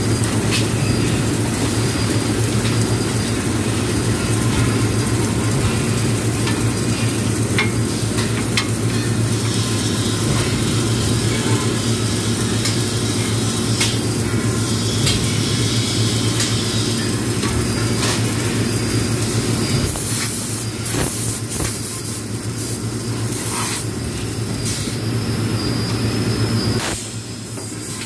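Submerged arc welding equipment running: a steady low electrical hum with scattered clicks over it. About two-thirds of the way through come a few short bursts of high hiss, and the sound dips briefly near the end.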